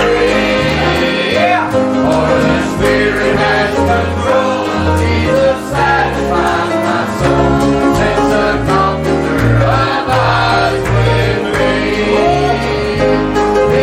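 Singers performing a gospel song with instrumental accompaniment and a bass line moving from note to note.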